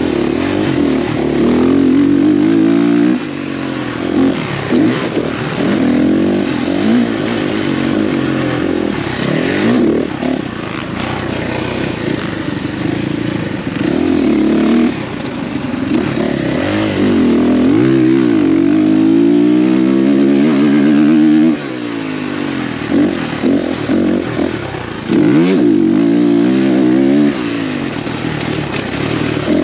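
Dirt bike engine under hard racing throttle, its pitch climbing through the revs and dropping off again and again as the rider accelerates, shifts and backs off. There is a rushing noise over it.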